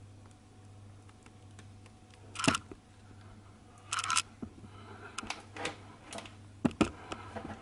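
Kitchen handling noises while sandwiches are made: a few sharp knocks and clatters, the loudest about two and a half seconds in and a quick cluster about four seconds in, over a steady low hum.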